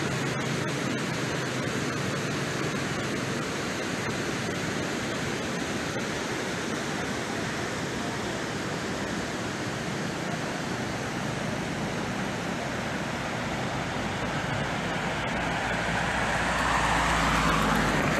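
Steady rushing water of the Panjshir River below the bridge, with a louder swell near the end.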